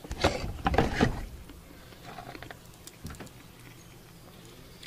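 Short crackles and clicks of boiled crawfish shells being handled and peeled by hand, mostly in the first second, then only a few faint ticks.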